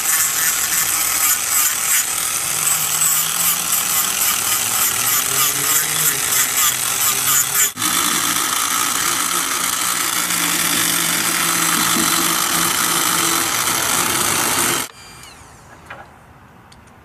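Tokyo Automac electric reciprocating carver cutting into wood: a dense, rapid chatter over the motor's steady hum. It breaks off for an instant about eight seconds in, then stops abruptly near the end.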